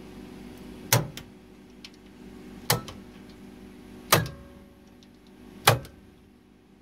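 Heavy contactors in a ballast switching cabinet clunking in, four sharp thuds about a second and a half apart, over a steady electrical mains hum.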